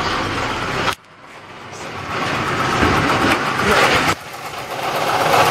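Car engine idling in neutral with the clutch released, with a bearing-like noise that the owner suspects comes from the transmission, a bad bearing or gear, because it goes away when the clutch is pressed. The sound drops off suddenly about a second in and again near four seconds, then builds back up each time.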